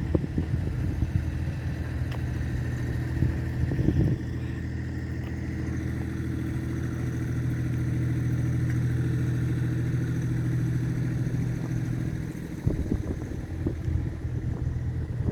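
Car engine running steadily at low speed, holding an even pitch, with a few short knocks and rattles.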